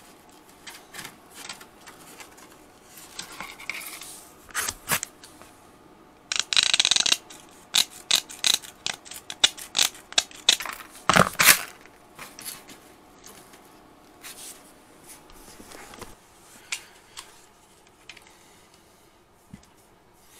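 Scissors snipping through aluminium wire mesh in irregular sharp cuts, with the mesh rustling and scraping as it is handled. The loudest snaps come a little past the middle.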